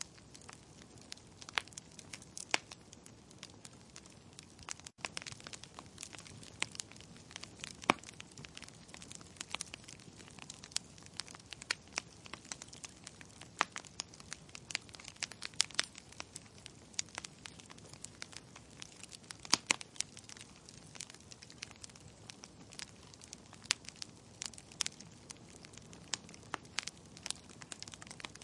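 Wood burning in a fireplace, crackling: irregular sharp snaps and pops of burning logs over a soft, steady hiss of the flames.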